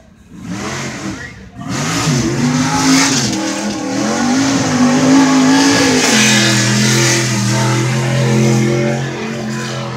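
Old Chevy stepside mega truck's engine revving hard as it plows through a mud pit. It comes in loud about a second and a half in, its pitch climbing and falling, then holds at high, steady revs for the last four seconds.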